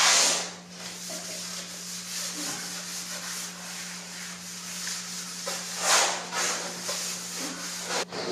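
A damp rag being rubbed back and forth over the back of a plastic sheet to wet it before gluing: a continuous scratchy swishing, with louder strokes right at the start and about six seconds in. A steady low hum runs underneath.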